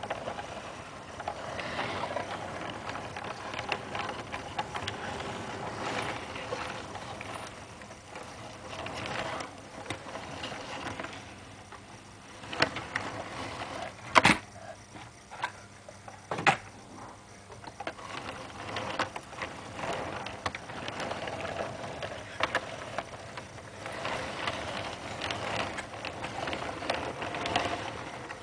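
Lionel O-scale model train rolling past on tinplate track: a continuous rattle of wheels clicking over the rail joints, quieter for a stretch in the middle, with three sharp clacks there.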